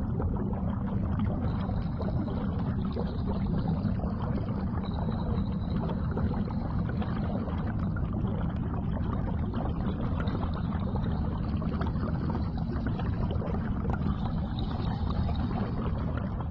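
Steady underwater rumble and wash, deep and even, with no distinct calls or beats.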